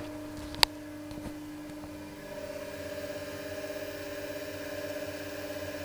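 Electric motor of an Elliott 10M shaper running, heard close up on a lapel mic beside it: a steady hum that takes on a slight even pulsing about two seconds in, with very little grumbling from the bearings, which are quiet enough that they are not worth changing. A single sharp click about half a second in.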